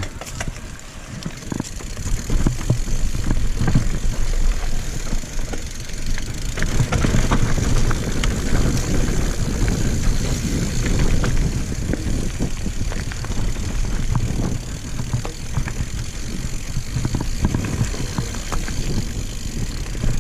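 Mountain bike rolling over a dirt singletrack trail: a steady rumble of tyres on the ground with scattered rattles and clicks from the bike.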